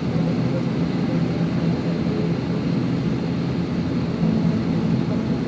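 Steady engine noise heard inside an airliner's cabin as the plane prepares for take-off, a low even rumble.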